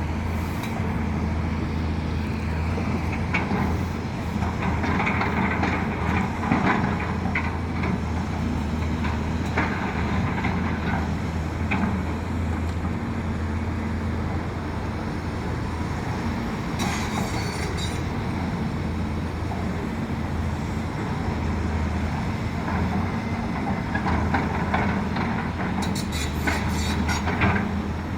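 Large excavator running steadily with a low engine drone, with scattered metal clanks and short squeals, mostly in two clusters early and near the end.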